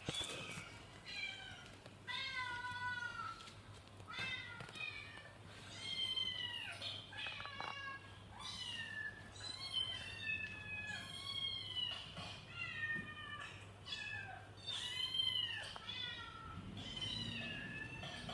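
A cat meowing over and over, high-pitched calls about once a second, each rising and then falling in pitch.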